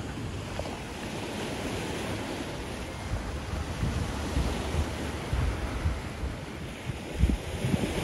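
Sea waves washing in close by, a steady rushing surf that swells and eases, with wind buffeting the microphone in low gusts, the strongest near the end.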